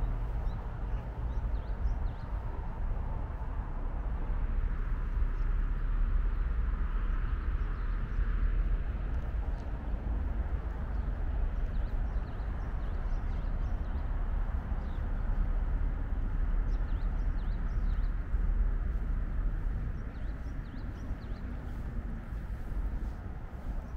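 Outdoor city-park ambience: a steady low rumble of distant city traffic, with short high chirps of small birds scattered through, more of them in the second half.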